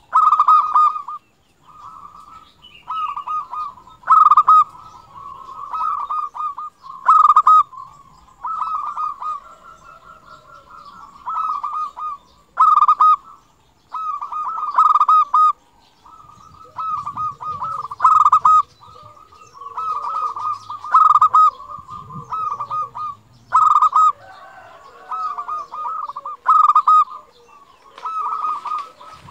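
Local zebra dove (perkutut) singing its staccato cooing song, phrase after phrase, a loud phrase every two to three seconds with softer rolling notes in between.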